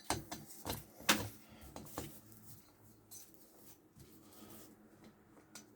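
A few small clicks and taps of hand tools on metal as the cylinder screws of a chainsaw are run in by hand without tightening. The loudest tap comes about a second in, and the rest are scattered and quieter.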